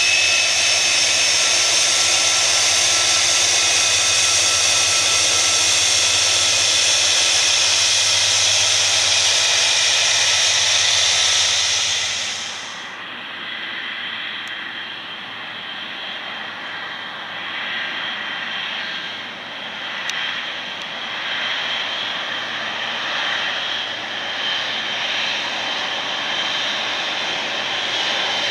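Boeing 747-400 freighter's jet engines on the runway, a steady loud high-pitched whine. About twelve seconds in it cuts to the quieter, lower sound of a Boeing 777-300ER's General Electric GE90 engines rolling past, rising and falling.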